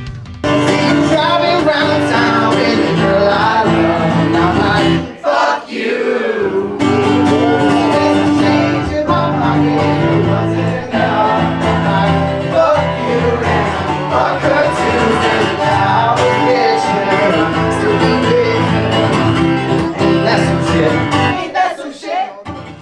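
Live band music: a loud band playing, cut in abruptly about half a second in, broken by a short drop around five to six seconds, and fading out at the end.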